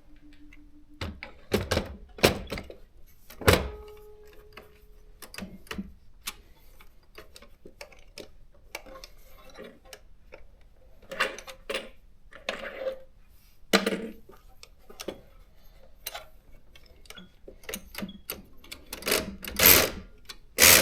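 Consul desktop typewriter being worked by hand: irregular mechanical clicks and metal knocks from its carriage and release levers, with a brief ringing note about three and a half seconds in and the loudest clunks near the end.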